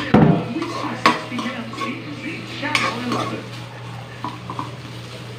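A stainless ladle scrapes and clanks against an aluminium wok as onions and garlic are stirred frying in it, with a faint sizzle. The sharpest clanks come at the start and about a second in.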